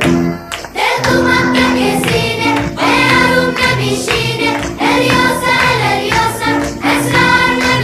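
Background music with singing voices over held instrumental notes, briefly dropping away just after it starts.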